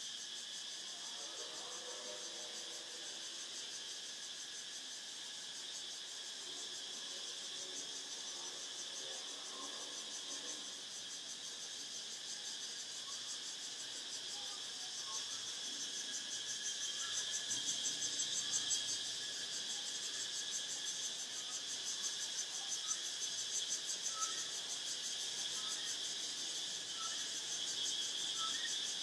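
A dense chorus of crickets trilling, a steady high-pitched pulsing that grows slightly louder about halfway through.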